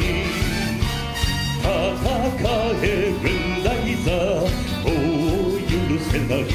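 Male singer belting an anime theme song live with vibrato, backed by a full band with a steady beat.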